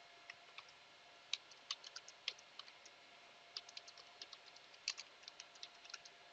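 Faint typing on a computer keyboard: scattered key clicks in two short runs, the second longer.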